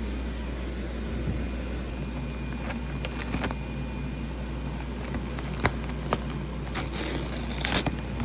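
Scattered sharp clicks and short crinkling rustles over a steady low hum, busiest near the end.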